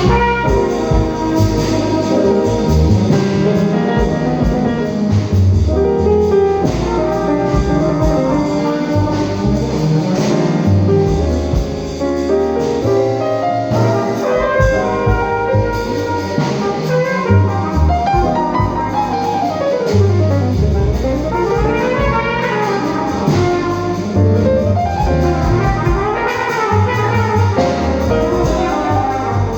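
Jazz band with brass playing a tune through a sound check, horns over a walking bass, with a fast run sweeping down and back up about twenty seconds in.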